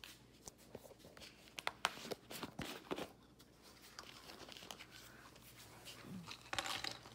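Handling noise: a run of sharp clicks and rustles over the first few seconds, then a short rustle near the end, as clothing brushes and rubs close against the phone.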